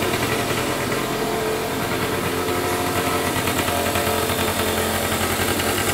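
SYM Jet 50 scooter's 50cc engine idling steadily, with a fast, even pulse.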